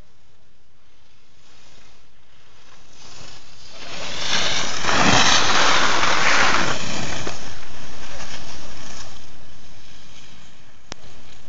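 Skis sliding and scraping over hard-packed snow, with wind rushing over the phone's microphone as the skier gathers speed. The rushing noise swells about four seconds in, holds for several seconds and then fades, and a sharp click comes near the end.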